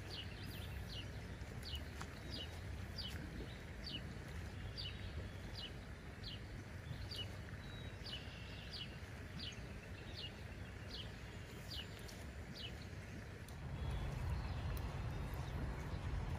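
A bird calling over and over, a short falling chirp repeated about once or twice a second, over a steady outdoor background. A low rumble comes up near the end.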